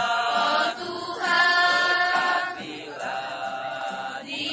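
Mixed high-school choir singing in unison, unaccompanied, in long held notes with short breaks between phrases.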